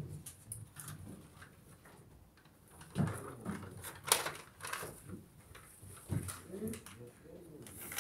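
Scattered handling knocks and thumps a second or two apart, the sharpest about four seconds in, with faint rustling between them.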